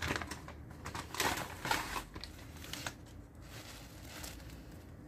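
Plastic packaging bag crinkling and rustling as it is pulled open by hand, in several rustles over the first three seconds, then only faint handling.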